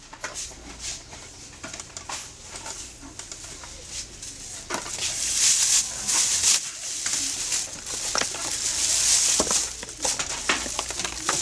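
A plastic bag and cardboard medicine boxes being handled on a counter: crinkly rustling that swells twice, mixed with small clicks and knocks of boxes being set down.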